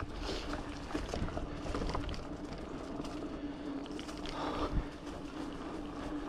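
Giant Fathom 2 hardtail mountain bike riding down a dirt trail: tyres rolling and the bike rattling and knocking over bumps, over a steady hum, with one louder knock about three quarters of the way through.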